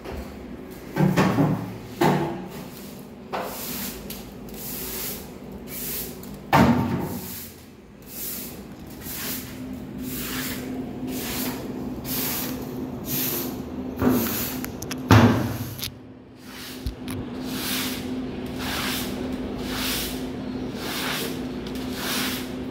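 Long-handled scrub brush scrubbing a soapy wet floor in rhythmic strokes, about one and a half a second, with a few heavy knocks in the first two-thirds. A steady low hum runs underneath from about nine seconds in.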